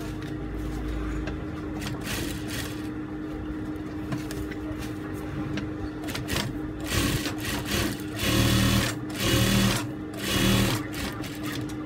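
Juki industrial sewing machine with a steady motor hum, the needle running in short bursts of stitching. The loudest are three bursts close together in the second half.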